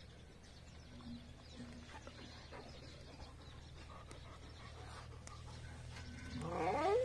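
A farm animal bleats once near the end, a call that rises in pitch, over a low steady hum.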